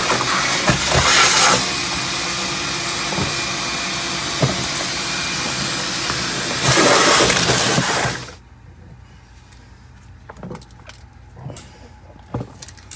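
Shop vacuum running, sucking the remaining water out of a sump pit, with louder gurgling surges of suction about a second in and again near the end; the motor switches off abruptly about eight seconds in. A few light knocks follow.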